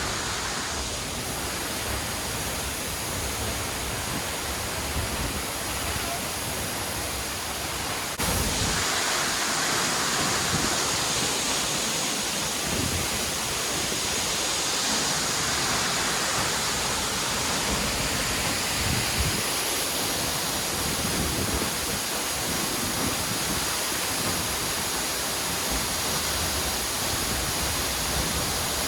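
Materuni waterfall pouring, a steady rush of falling water; the sound steps up a little louder about eight seconds in.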